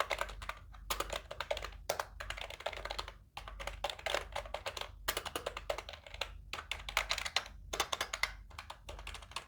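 HP K300 gaming keyboard being typed on for a sound test of its keys: rapid runs of clicking keystrokes in bursts, with short pauses between them.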